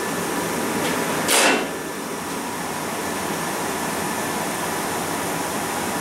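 Twinned 1985 Carrier 58GP gas furnaces firing, with the burners lit and the blowers on: a steady rushing noise of flame and moving air, with a strong suction drawing air into the burners. A brief, louder whoosh comes about a second and a half in.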